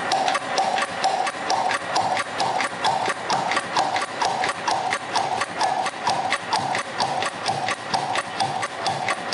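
Dance music over the sound system, its opening a fast, even ticking like a clock or wood block over a pulsing mid-pitched tone.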